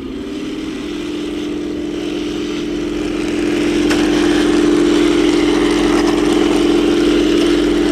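Henglong RC Walker Bulldog tank driving over grass and dirt, its sound unit playing a simulated tank engine together with the noise of its drive and tracks. The drone is steady, rises slightly in pitch in the first second and grows louder over the first few seconds.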